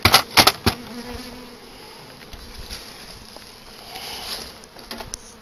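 Honey bees buzzing around freshly installed hives, one flying close by with a steady hum about a second in. A few sharp wooden knocks in the first second as gloved hands handle the wooden hive parts.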